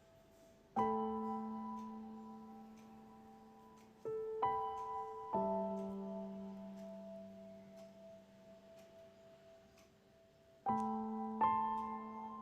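Soft background piano music: slow chords struck every few seconds, each ringing out and fading.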